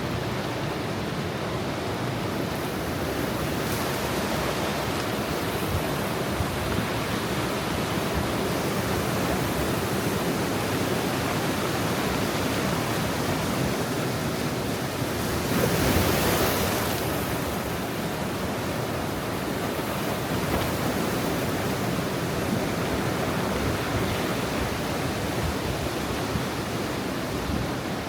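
Ocean surf at high tide: a steady rush of waves washing in, with one wave breaking louder about halfway through.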